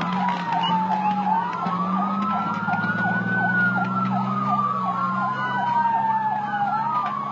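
Several emergency-vehicle sirens sounding at once. One is a slow wail that falls, rises and falls again over a few seconds; another is a fast yelp at about three cycles a second; a second wail joins near the end. A steady low hum runs beneath them.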